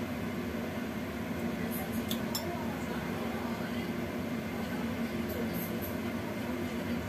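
Steady rush of a gas stove burner heating a lidded wok, with a few light clinks about two seconds in and again past five seconds.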